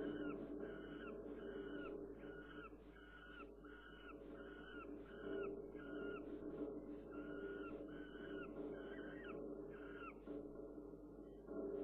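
Juvenile peregrine falcon calling over and over, short harsh notes about one and a half a second that stop near the end, over a steady low hum.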